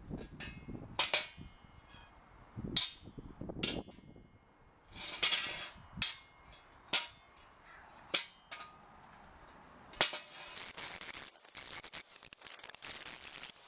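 Sharp metal clanks and knocks of steel parts being handled or struck, several ringing briefly, with a steady hiss from about three quarters of the way through.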